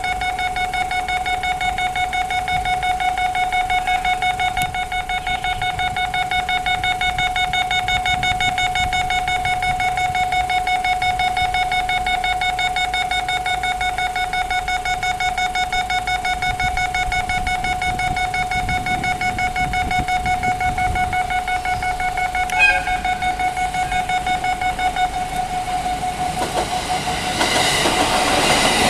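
Railway level-crossing warning alarms sounding a quickly pulsing electronic tone. Near the end a train's rumble and wheel clatter rise over it as the train comes through.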